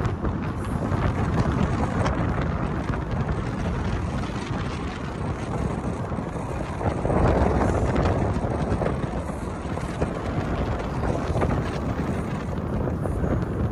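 Wind rushing over the microphone with tyre and road noise from a car moving at highway speed, steady throughout, swelling louder for about a second around seven seconds in.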